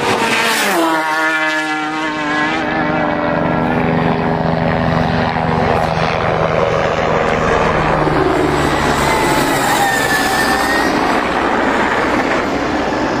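Racing motorcycles passing at high speed. One flies by about half a second in, its engine note dropping sharply as it goes past, followed by more engine noise from bikes running flat out.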